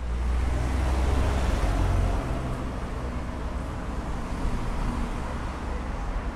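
Street traffic noise, with a low vehicle rumble loudest in the first two seconds or so, settling into a steady wash.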